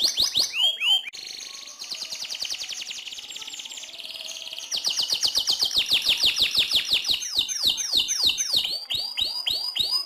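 Domestic canary singing long, rapid rolling trills of fast repeated high notes. The trills go softer for a few seconds after the first second and come back loud at about the halfway point, then break into a run of slower sweeping notes that fall in pitch near the end.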